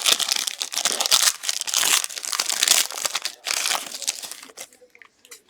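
Crinkling and tearing of a trading-card pack wrapper being ripped open and handled. It is dense and crackly for about four and a half seconds, then fades to faint handling noise near the end.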